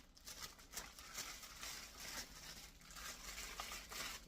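Faint rustling and handling noise with a few light clicks and taps, as plastic vacuum parts and packaging are picked up and turned over. The vacuum's motor is not running.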